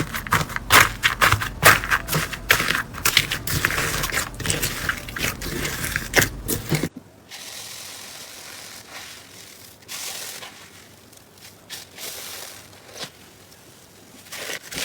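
Crunchy slime being squeezed and pressed: rapid, dense crackling and popping. About seven seconds in it cuts to quieter, softer handling with a few scattered crackles.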